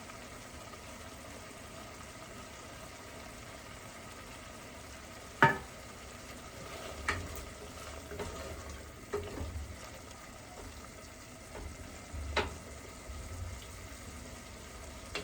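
Cooking pan sizzling steadily, with a few sharp metal clinks of utensils against cookware; the loudest clink comes about five seconds in.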